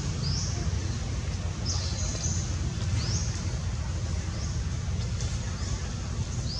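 A small bird chirping, short high chirps repeated every second or so, over a steady low rumble.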